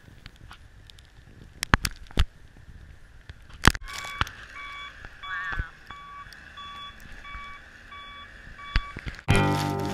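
A vehicle's reversing alarm beeping steadily, about two beeps a second, with a few sharp knocks before it starts.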